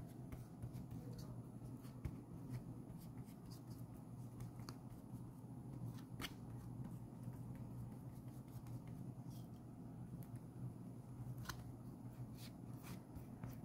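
Faint scattered ticks and soft rustles of fingers pressing and smoothing a gloss-gel-soaked paper towel strip onto the back of a canvas, over a steady low hum.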